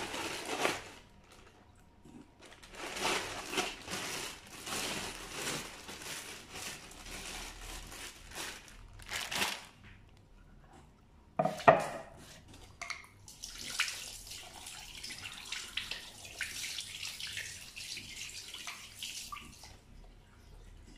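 Wet raw round scad (galunggong) being handled and packed into a plastic bag: irregular rustling of plastic and wet, splashy dripping sounds, with one sharp knock about eleven and a half seconds in.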